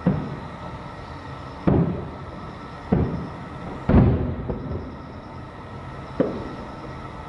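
Distant aerial firework shells bursting: five deep booms a second or two apart, each fading out in a short echo, the loudest about four seconds in.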